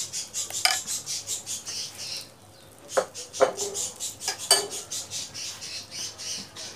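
A spoon scraping and tapping on a pan as semolina batter is spooned on and spread into small rounds. The scraping comes in quick strokes, about four a second, with a few sharp taps in the middle.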